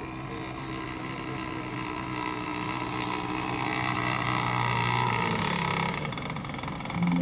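Radio-controlled racing boat motor running on the lake, growing louder to a peak about four to five seconds in, then fading away.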